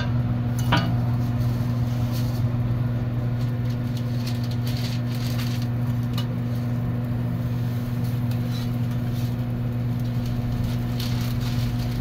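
A steady low mechanical hum from machinery around a flat-top griddle. A few light clicks and scrapes of a metal spatula on the griddle come through it, near the start, around the middle and just after the end.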